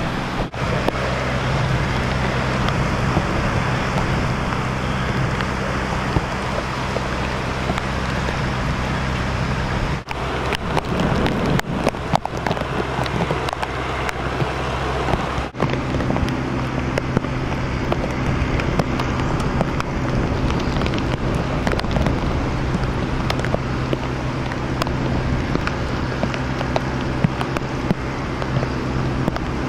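Steady rain noise with the low hum of a running vehicle engine underneath, broken by a few abrupt cuts about 10 and 15 seconds in.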